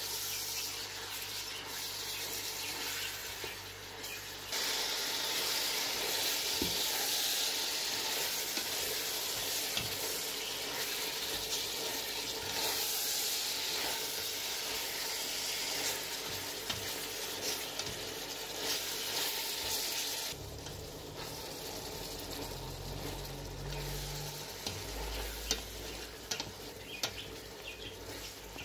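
Diced chicken breast and onion sizzling as they are sautéed in hot olive oil in a pot, stirred with a spatula. The sizzle grows louder about four seconds in and eases off about twenty seconds in, with a few sharp clicks near the end.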